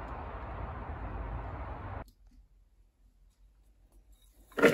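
Steady outdoor background hiss that cuts off suddenly about two seconds in, then near quiet. Right at the end comes a sudden loud rattle as a bowlful of red currants on their stalks is tipped into a plastic bowl.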